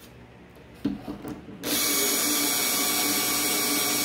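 A power drill starts about one and a half seconds in and runs steadily, driving a cutter in reverse to sink a shallow recess. A short knock comes just before it starts.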